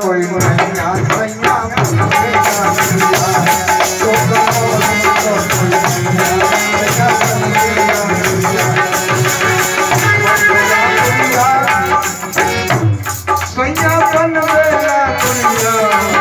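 Harmonium playing a folk tune over steady rhythmic percussion and a rattle, with a man's voice singing into a microphone, most clearly near the end.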